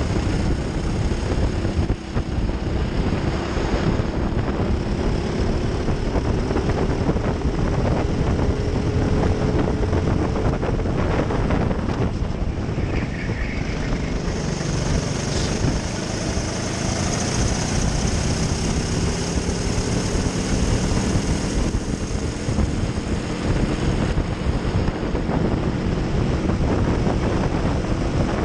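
Racing kart's engine running hard, recorded on board, its pitch climbing slowly along the straight, dipping about twelve seconds in for a corner and then climbing again, with a steady rush of wind and road noise underneath.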